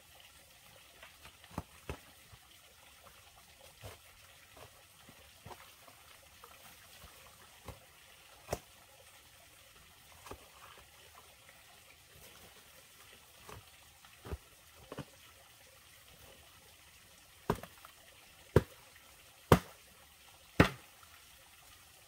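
A hoe striking wet earth over and over at an uneven pace, soft blows at first, then four loud strikes about a second apart near the end, over a faint trickle of water.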